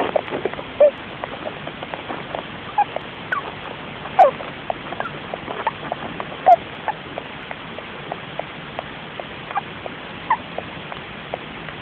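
Russian dwarf (winter white) hamster making small sounds in its sleep: many short, irregular squeaks, some falling in pitch, with the loudest three a few seconds apart, over a steady background hiss.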